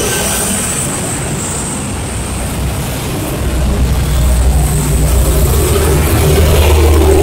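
Busy city road traffic, mostly motorcycles and cars, running steadily past below. About three and a half seconds in, a deeper engine rumble comes in and grows louder.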